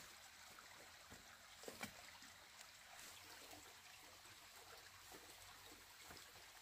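Near silence: a faint steady background hiss, with a couple of faint knocks nearly two seconds in.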